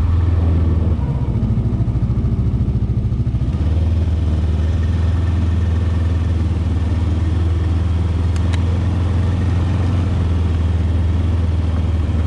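Snowmobile engine running under way, a steady low hum; about a second in the revs rise for a couple of seconds, then settle back to an even pace.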